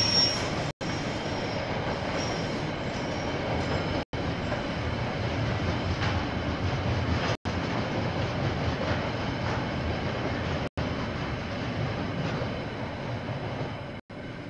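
KiwiRail train passing on the line, steady rolling rumble of wheels on rail, with a high wheel squeal near the start that fades away; the sound eases off toward the end as the train moves on.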